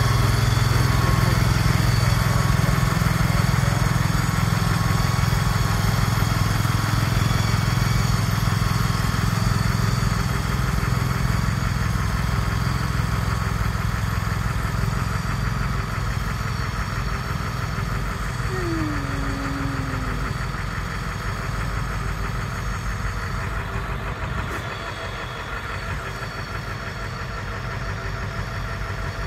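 Engine of a shed-moving machine running steadily with a low, even hum, growing gradually quieter over the second half. A short falling whine comes about two-thirds of the way through.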